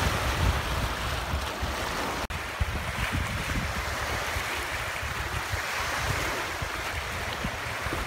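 Wind-driven waves splashing against a rocky estuary shore, with wind buffeting the microphone. The sound cuts out for an instant about two seconds in.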